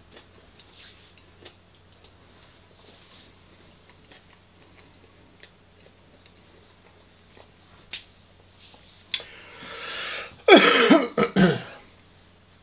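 A man chewing food, with a few faint clicks. About ten seconds in, a loud cough and clearing of the throat.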